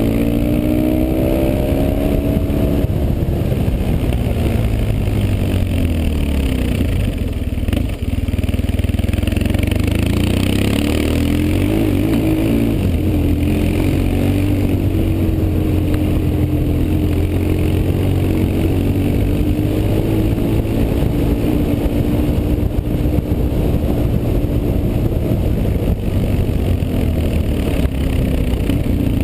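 BMW R 1150 GS's air-cooled boxer twin running under way, its pitch rising and falling with the throttle, with a brief drop about eight seconds in.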